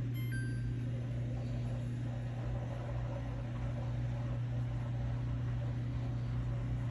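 Samsung Grande 17 kg AddWash front-loading washing machine running with a steady low hum. A short electronic beep from its control panel, stepping down in pitch, sounds right at the start.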